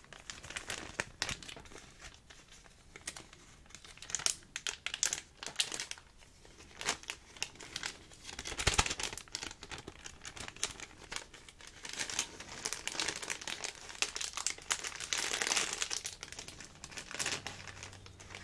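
Clear plastic bag crinkling as it is handled and opened close to the microphone: a dense run of small crackles, with the loudest stretches around nine seconds in and again from about twelve to sixteen seconds.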